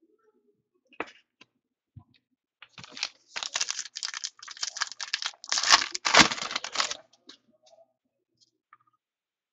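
A trading card pack's wrapper is torn open and crinkled by hand. It makes a dense crackling from about three seconds in until about seven seconds, loudest near six seconds, with a few light clicks before and after.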